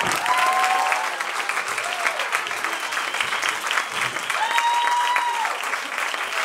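Audience applauding with dense clapping, a few voices calling out over it.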